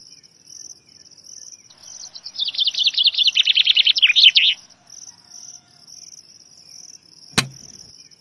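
Cricket chirping steadily, about two high chirps a second, joined in the middle by a songbird's rapid trill of falling notes lasting about two seconds. A single sharp click comes near the end.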